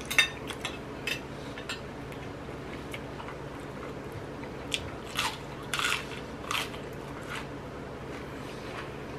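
Close-up eating sounds: a few crunches of chewing near the start, then a run of crisp crunches about five seconds in as a raw romaine lettuce leaf is bitten and chewed.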